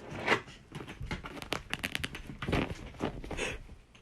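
Irregular crinkling and rustling with many scattered short clicks and crackles, fading out at the very end.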